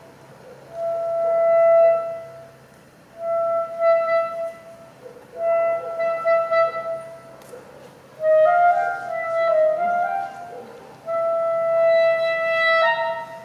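Solo clarinet improvising a slow line: held notes of one to two seconds with short breaths between, a quick run of notes about eight seconds in, and a leap up to a higher note near the end. A faint steady low hum runs underneath.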